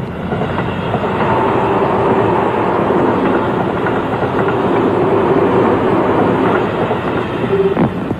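A loud, steady rumbling and clattering noise that swells up about half a second in and dies away near the end.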